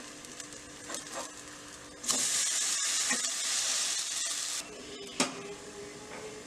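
Wheat rava dosa frying in a non-stick appam pan as it is turned with a steel spatula: a few clicks and scrapes of the spatula on the pan, then a much louder sizzle about two seconds in as the raw side meets the hot pan, which cuts off suddenly about four and a half seconds in. Quieter sizzling and spatula taps follow.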